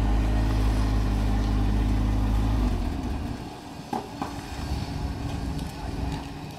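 Off-road 4x4 SUV engine pulling steadily under load as the truck crawls over boulders. About two and a half seconds in it eases off and drops to a much quieter low running, with a short knock near the middle.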